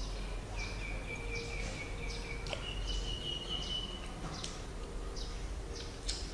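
Close-miked mouth sounds of eating grapes: scattered wet smacks and clicks over a steady low hum. A thin, steady high tone is held for about two seconds, then a slightly higher one for about a second and a half.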